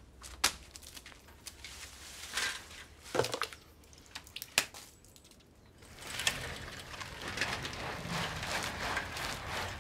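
A few scattered clicks and knocks, then from about six seconds in a steady rushing noise with fine ticking as a bicycle is ridden along a road.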